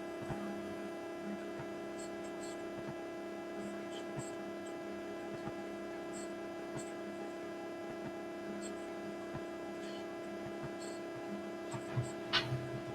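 Steady electrical mains hum with a few faint clicks, and a brief sharper sound near the end.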